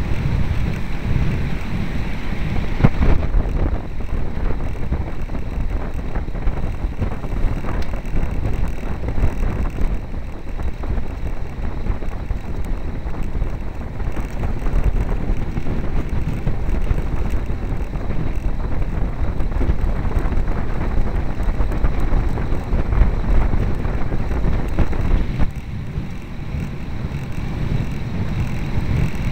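Wind buffeting the microphone of a camera on a road bicycle moving at speed: a steady low rushing rumble.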